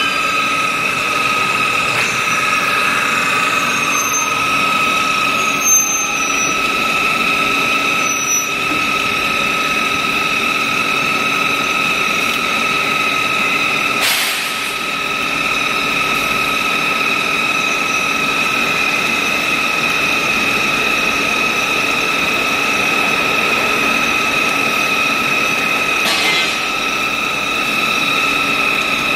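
High-speed bar-to-bar peeling machine running with a steady, high-pitched whine, with a few short high squeaks between about four and eight seconds in and a sharp click about halfway through.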